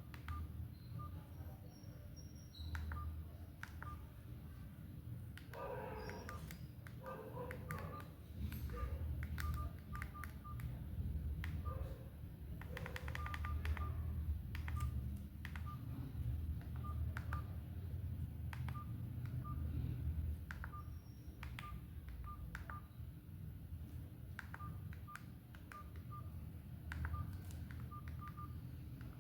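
Itel Power 450 keypad phone's key tones: a series of short, same-pitched beeps, each with a click as a button is pressed, coming in quick runs and single presses over a low steady hum.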